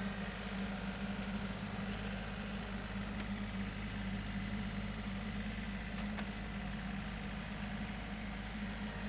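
Tractor engine running steadily at an even speed, with two faint clicks partway through.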